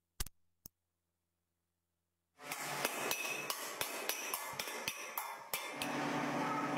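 Quick, irregular metal taps and clinks of a hammer setting rivets in a fan blade's hub, a few strikes a second, after about two seconds of silence. Near the end this gives way to a steady workshop hum.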